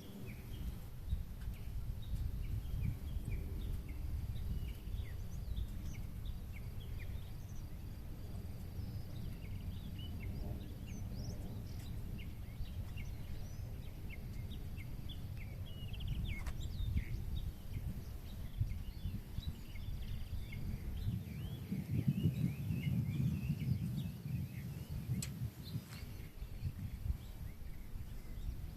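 Many small birds chirping and calling over a low, gusty rumble of wind on the microphone that swells briefly about three-quarters of the way through.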